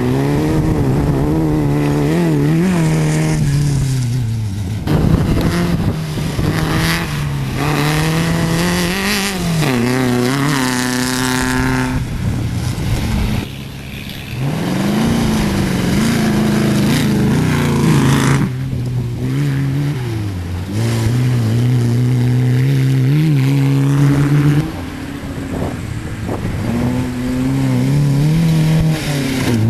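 Off-road race cars' engines revving hard as the cars race past one after another. The engine note repeatedly rises and falls with throttle and gear changes, with a long climb in pitch about ten seconds in.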